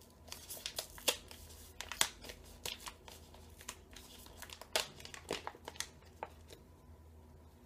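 Foil-lined loose-leaf chewing tobacco pouch crinkling and crackling as it is handled and opened, a run of irregular sharp crackles that die down near the end.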